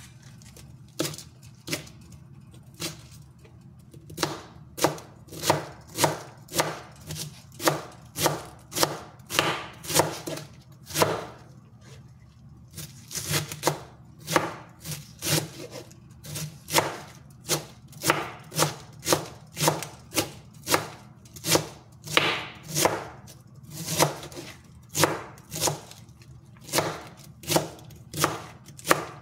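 Chef's knife shredding red cabbage on a cutting board: a few scattered cuts, then a steady run of chopping strokes at about two a second, with a short pause about twelve seconds in.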